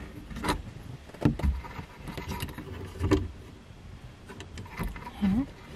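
Plastic phone mount being clamped onto a car's rearview mirror stem by hand: several clicks and knocks as the clamp and arm are handled.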